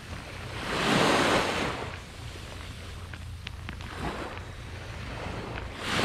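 Small waves breaking on a sandy shore: one wash of surf swells and fades about a second in, another near the end. Underneath is a steady low rumble of wind on the microphone.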